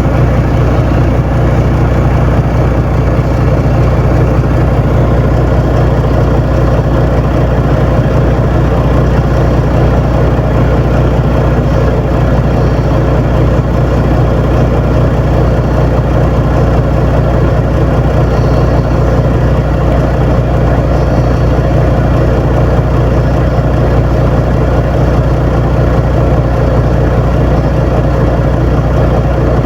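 Heavy vehicle engine running at a steady speed: a constant low hum that holds the same pitch throughout.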